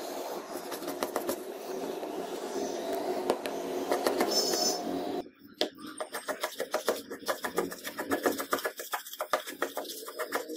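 Flat wood chisel paring and chopping a small softwood block by hand, a rapid run of sharp clicking cuts, several a second, as chips break away. Over a steady background noise for the first half, which stops abruptly about halfway.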